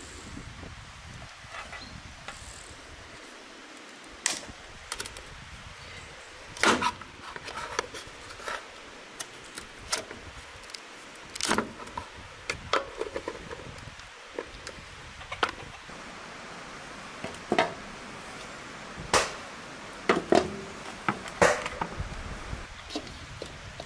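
A kitchen knife knocking and scraping against beef marrow bones on a metal tray: about a dozen sharp knocks and clinks, irregularly spaced.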